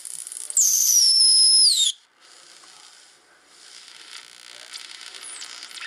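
Homebrew 40-metre regenerative receiver on its speaker: a loud high heterodyne whistle that holds steady, slides down in pitch and cuts off about two seconds in, as the set tunes across a signal. A steady hiss of band noise follows.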